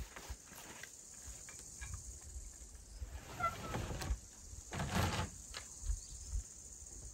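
Quiet outdoor ambience with faint footsteps on grass and a few soft knocks, the loudest about five seconds in. A brief bird chirp is heard about three and a half seconds in.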